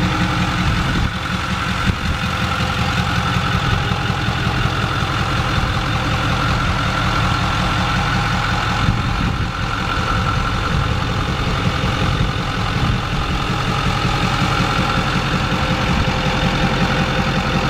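2008 Ford F-350's 6.4-litre Power Stroke V8 turbo-diesel idling steadily, through a 5-inch exhaust with the DPF and catalytic converter deleted.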